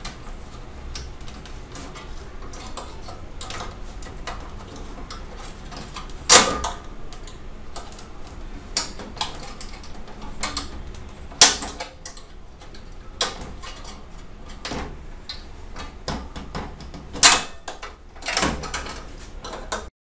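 Microwave oven door latch spring and its plastic hook mechanism being worked loose by hand: irregular sharp clicks and knocks a second or more apart, with quieter handling between them.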